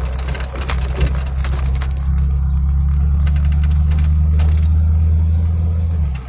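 Vehicle engine and road noise heard from inside the cab while driving: a steady low drone, with scattered clicks over the first two seconds.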